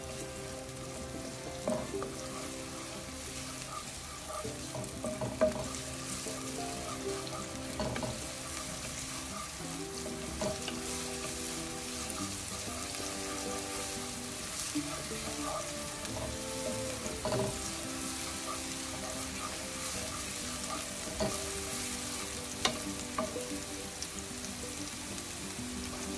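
Minced onions sizzling steadily in butter and olive oil in a hot skillet, stirred now and then, with a few sharp clicks.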